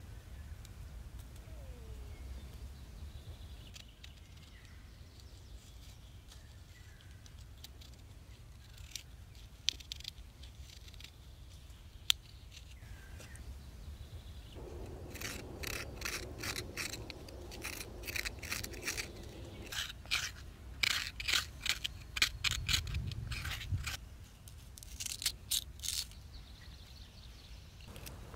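A knife cutting into a raw purple kohlrabi, making crisp crunching cuts. A few single clicks come in the first half, and quick runs of cuts follow in the second half.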